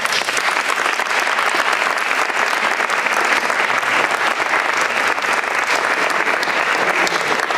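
An audience applauding, a dense and steady clapping.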